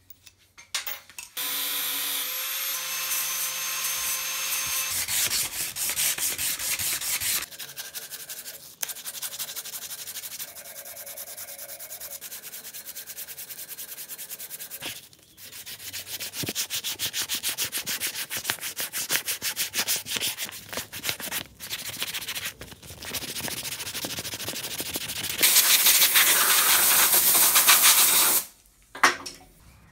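Wooden sickle handle being sanded by hand, abrasive rubbing in rapid back-and-forth strokes. It comes in several stretches that stop and start abruptly and is loudest near the end.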